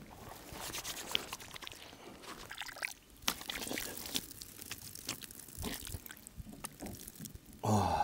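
Water pouring and trickling, as in washing up, with small clicks and clatter mixed in. A short pitched voice-like sound comes near the end.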